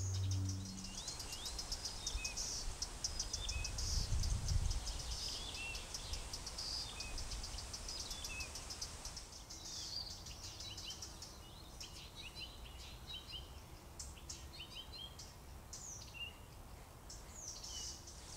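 Faint meadow ambience: several small birds chirping and calling, over a fast, steady high chirring of insects. A brief low rumble comes around four seconds in.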